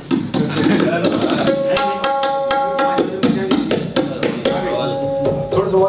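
Tabla played in a fast, unbroken run of strokes imitating the rhythm of a moving train. A steady held note sounds over the drumming twice, about a second and a half in and again around four and a half seconds.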